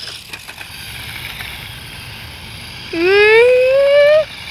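A person's voice gives one drawn-out, rising call lasting about a second, starting some three seconds in and breaking off abruptly, after faint outdoor background noise.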